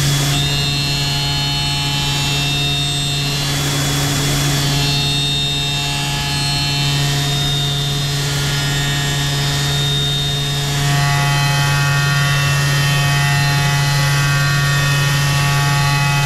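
CNC machining centre's spindle driving a 3/4-inch ball-nose end mill as it finish-cuts the inside wall of a brass drum shell. The sound is a steady machining hum and whine over a hiss, with a strong low hum and several higher steady tones, and it shifts slightly about eleven seconds in.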